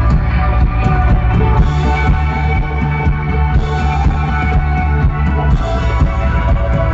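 Rock band playing live at full volume, with a steady drum beat under bass and sustained guitar chords.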